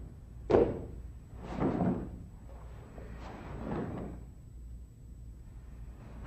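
Bare feet thudding and stamping on a floor mat during a karate kata. A sharp stamp about half a second in, as a kick is set down, is the loudest. A few softer thuds and swishes of movement follow over the next few seconds.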